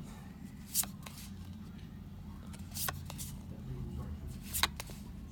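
Magic: The Gathering trading cards being handled, giving a handful of short, sharp card snaps and clicks as they are flipped through, over a low steady hum.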